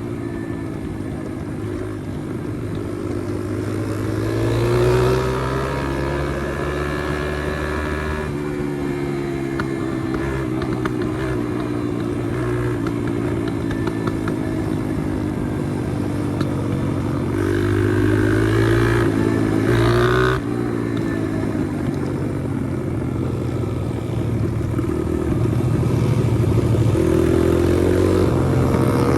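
Pit bike's small single-cylinder engine running under way, its pitch rising and falling as the throttle opens and closes, with sharp breaks about 8 and 20 seconds in.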